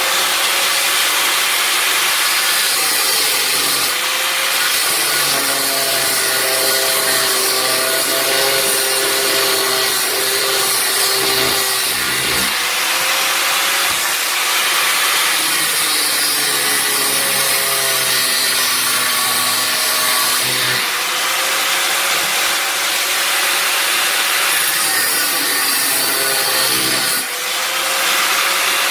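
Power tool cutting a blanking plug out of steel plate, running continuously with a dense hiss and a motor tone whose pitch wavers as the load changes; it eases briefly near the end.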